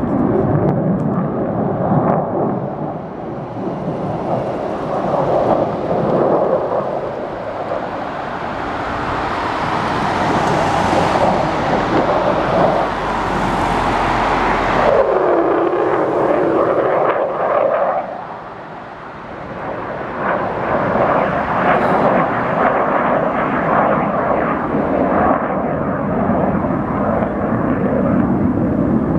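Airplane flying over, a loud rushing rumble that swells toward the middle, drops in pitch as it passes, fades briefly, then builds again.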